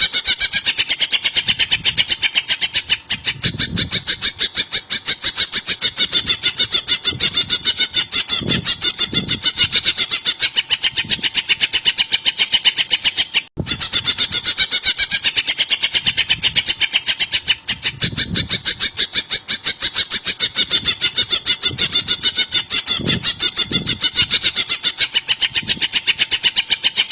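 Cucak ijo (green leafbird) calling in a long, rapid series of evenly repeated, fairly high notes, a recording used for song training. It breaks off briefly about halfway through and the same sequence starts again.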